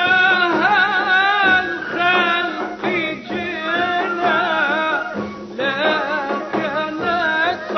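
Iraqi male singer chanting an Arabic religious praise poem (tamjeed), long ornamented phrases with heavy vibrato and melismatic turns, broken by short pauses for breath.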